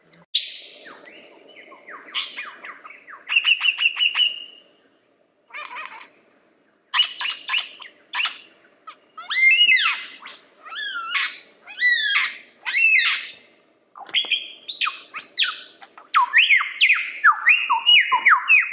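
Lyrebird singing a loud, varied string of phrases: fast trills, quick rising and falling whistles and harsher squawky notes, with short pauses between the phrases.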